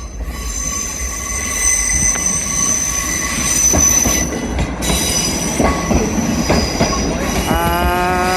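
Class 158 diesel multiple unit running into the platform, its wheels squealing on the rails with several steady high tones over a constant low rumble. Near the end a lower pitched tone starts and rises slowly.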